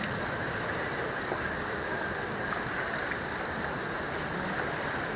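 Steady rushing of wind and sea surf, with no clear engine tone.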